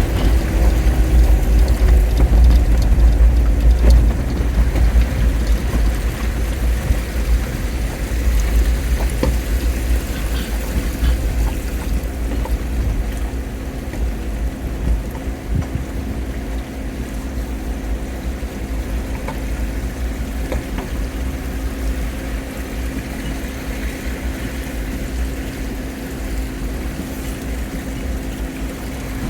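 Jeep Wrangler driving, its engine a steady hum over heavy low rumble. The rumble is loudest for the first few seconds and then eases.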